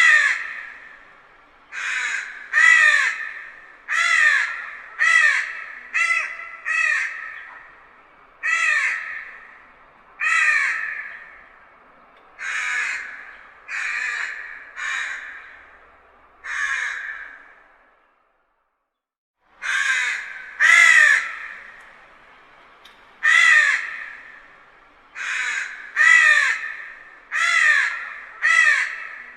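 Crow cawing repeatedly at a distance: harsh calls come in runs about a second apart, each trailing off in echo. There is a short break of dead silence a little past the middle.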